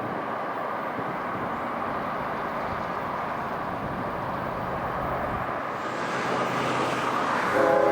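Approaching CSX freight train's diesel locomotives, a steady rumble that grows louder over the last few seconds, with the locomotive's multi-note air horn starting to blow right at the end.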